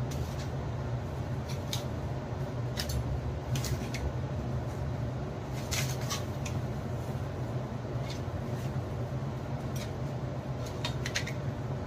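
Scattered light clicks and taps of kitchen handling, a dozen or so spread irregularly, as fried urad dal vadas are put into a bowl of plain water to soak, over a steady low hum.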